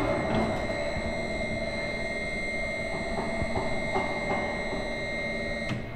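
Spiral vacuum tumbler's electric drive running after being switched on at its push-button pendant: a steady motor hum with a high, even whine. It starts suddenly and cuts off near the end when it is stopped.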